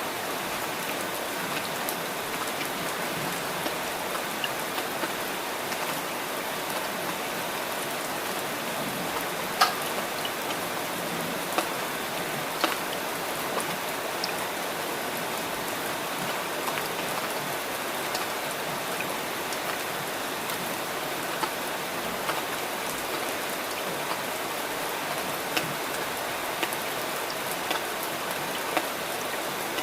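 Steady rain falling, a dense even patter, with now and then a sharper, louder single drop standing out.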